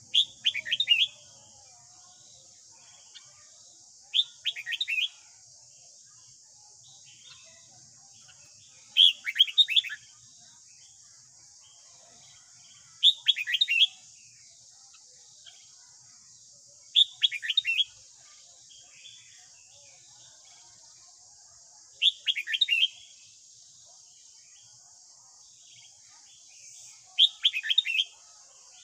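Red-whiskered bulbul singing: seven short, bright phrases about every four to five seconds, each a quick run of falling whistled notes.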